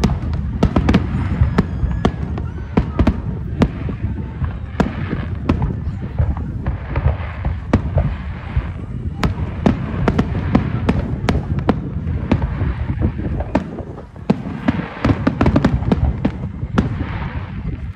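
Aerial firework shells bursting in quick succession: a rapid, irregular string of sharp bangs over a continuous low rumble.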